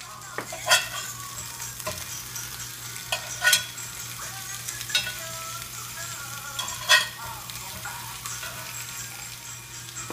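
Ground-beef patties sizzling in a Lodge cast iron grill pan, with a metal spatula clinking and scraping against the iron about four times as they are turned.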